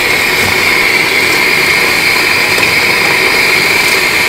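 Steady whirring of a small motor with a constant high whine, running without a break.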